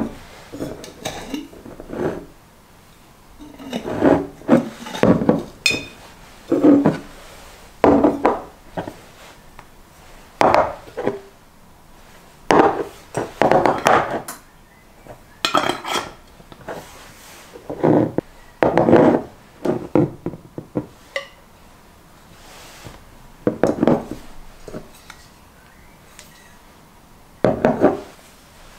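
Glass jars and bottles handled on a wooden countertop: repeated knocks as they are set down and moved, with the rubbing scrape of screw-top lids being turned.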